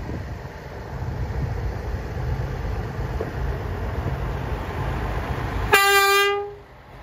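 Hi-rail utility truck rolling along the track with a low rumble as it approaches. Near the end it gives one short horn blast: a single steady note of under a second, the loudest sound here.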